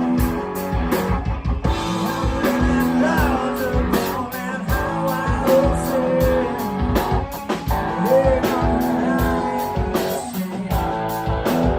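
A rock band playing live: guitar and a drum kit keeping a steady beat, with a voice singing over them.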